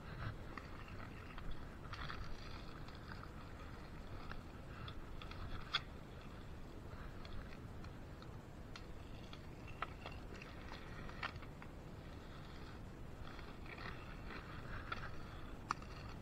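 Rustling and scraping of a hockey goalie leg pad and its straps being handled and fastened, with scattered small clicks.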